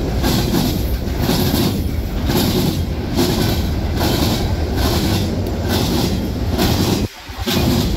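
Freight cars of a manifest train rolling past close by: a loud, steady rumble of steel wheels on rail with evenly repeating clicks as the wheels cross rail joints. The sound dips briefly about seven seconds in.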